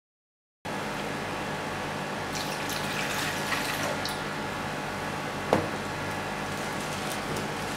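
Liquid pouring and splashing into a blender jar, a steady watery rush that starts shortly after a silent moment, with one sharp click about five and a half seconds in.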